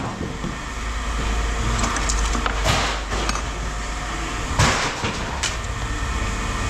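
Scrap metal being tossed and landing on a pile, with two louder crashes about two and a half and four and a half seconds in and a few lighter knocks, over a steady low machine hum.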